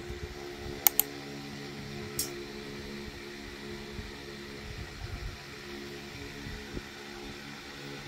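Steady low mechanical hum in a small room, with two sharp clicks about a second in and a brief rustle near two seconds as tops on metal hangers are handled.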